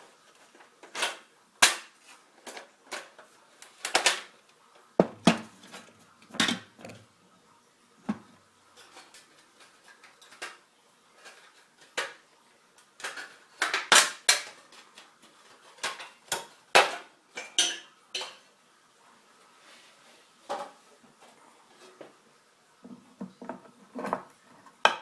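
Irregular clicks, knocks and clatter of plastic and steel parts as an Xbox 360 console's case is cracked open and taken apart by hand.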